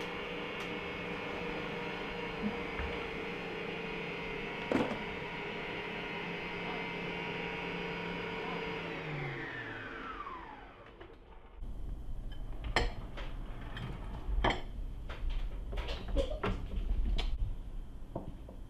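Electric stand mixer running steadily while it beats eggs and sugar. About nine seconds in it is switched off, and its motor whine falls in pitch and dies away. Scattered clicks and knocks of handling the mixer head, bowl and utensils follow.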